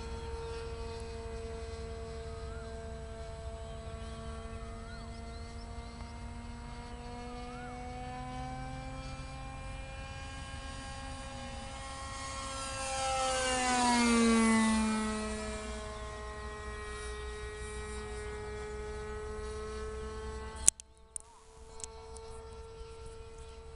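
RC model airplane's .46-size glow engine droning steadily as the plane flies overhead. About 13 to 15 seconds in it passes close, getting louder and then dropping in pitch as it goes by. A sharp click comes near the end.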